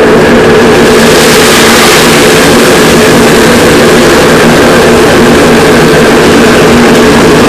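A loud, steady engine or motor running at constant speed: an unchanging hum over a broad hiss.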